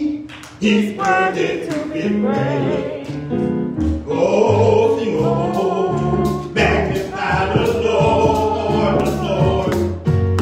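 Gospel singing: a man's voice leading a worship song through a microphone, with other voices and low held notes underneath.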